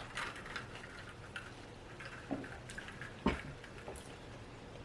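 Faint eating sounds of someone chewing nachos: small scattered mouth clicks, with one sharper knock about three seconds in.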